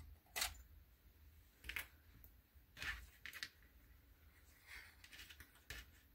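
Soft clicks and rustles of cotton quilting fabric being folded and small plastic sewing clips being handled on a cutting mat, about half a dozen short, faint sounds spaced roughly a second apart.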